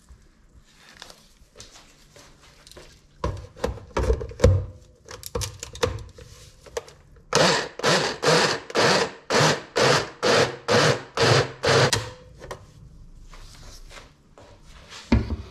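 Personal bullet-style blender pulsed about a dozen times in quick succession, two to three short bursts a second, its blade chopping oats and banana. Before the pulses there is plastic clatter as the blade lid is screwed on and the cup is fitted onto the motor base, and near the end a single knock.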